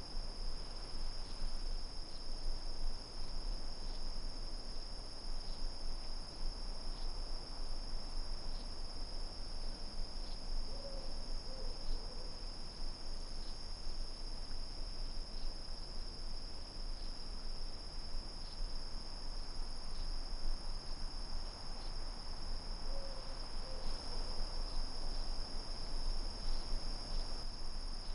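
Steady chorus of night insects such as crickets, a continuous high-pitched trilling. A low hooting call of two or three short notes is heard twice, about eleven and twenty-three seconds in, over a faint low rumble.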